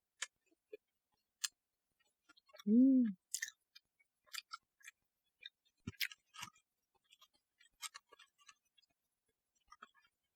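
Close-up eating sounds: crunching and chewing of crispy fried sweet and sour pork, heard as scattered sharp clicks and crackles. About three seconds in there is a short hummed 'mm' that rises and falls in pitch.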